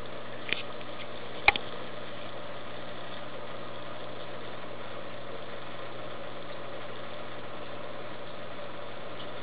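Steady mechanical hum of running aquarium equipment such as a pump, with two short sharp clicks about half a second and a second and a half in.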